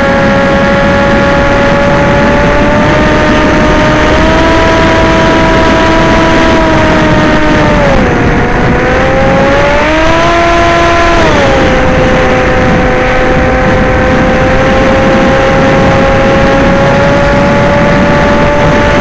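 Electric motor and propeller whine of a radio-controlled FPV aircraft in flight, over a steady rush of noise. The pitch holds steady, dips about eight seconds in, climbs back briefly, then drops again a few seconds later as the throttle changes.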